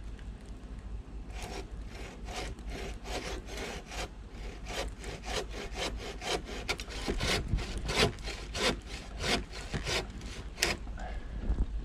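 Hand saw cutting through a small poplar trunk in quick back-and-forth strokes, about three a second, starting about a second in and stopping shortly before the end.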